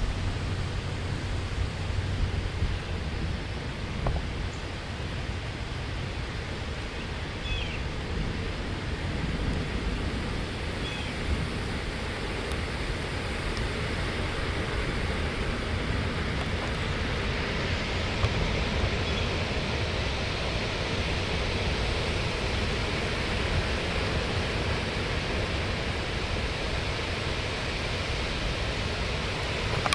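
Strong thunderstorm outflow wind blowing through trees: a steady rushing of leaves, with low rumble from wind on the microphone.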